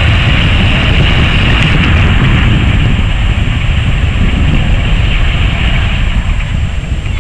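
Airbus A380's four turbofan engines on the landing roll: a loud, steady jet rush with a hiss on top, easing slightly near the end.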